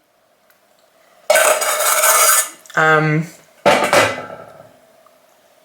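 Cutlery scraping and clattering against dishes, in two bursts about two seconds apart.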